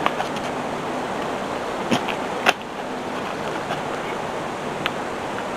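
Steady rushing outdoor background noise, with a few sharp clicks or snaps about two seconds in, again half a second later, and once more near the end.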